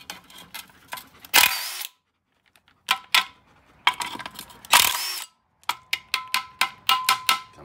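A Ryobi cordless impact wrench hammering the blade bolts loose on a Victa mower's blade disc. It gives two short bursts, about a second and a half in and again about five seconds in, then a quick run of sharp metallic clicks and rattles near the end.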